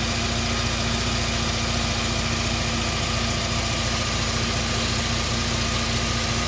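UAZ Patriot engine idling steadily with its accessory drive belt turning on newly fitted tensioner and idler pulleys, which the owner says run quieter.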